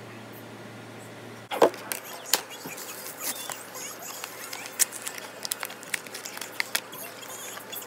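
A steady low hum, then about a second and a half in a sharp knock, followed by a run of small clicks, taps and rustles as small objects are handled close to the microphone.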